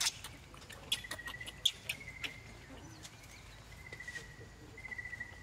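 A few short, high squeaks from a newborn macaque in the first half, with a thin, high insect trill coming and going behind them.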